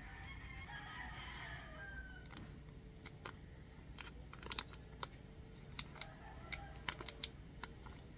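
A rooster crows once, for about two seconds. Then come scattered sharp clicks and crinkles from a plastic sauce sachet being squeezed and handled, the loudest in the second half.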